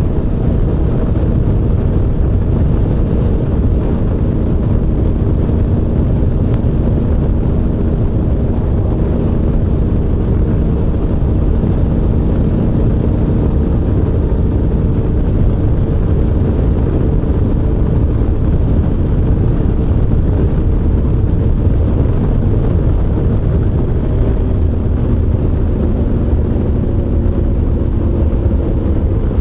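Adventure motorcycle cruising steadily at highway speed: a constant engine drone under wind rush on the microphone.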